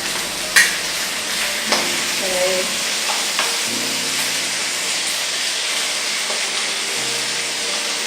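Chicken wings sizzling steadily as they fry in hot peanut oil in a wok, with a spatula clicking against the wok twice near the start.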